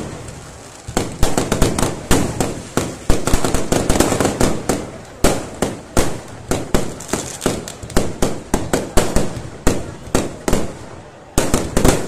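Fireworks display: a rapid, irregular string of sharp bangs from bursting aerial shells and crackers, several a second, with short pauses near the start and near the end.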